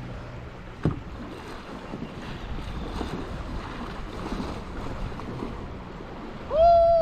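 Water splashing and lapping around a kayak, with wind on the microphone and a sharp knock about a second in. Near the end, a loud drawn-out call rises and then falls in pitch.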